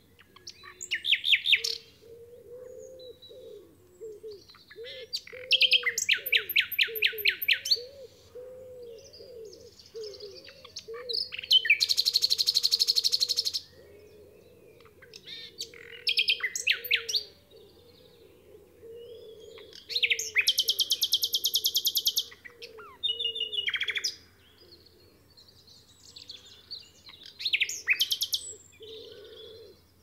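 Common nightingale singing: about seven loud phrases of one to three seconds each, separated by short pauses. Each phrase is built of rapid runs of repeated notes, the one around the middle a long, fast volley of notes.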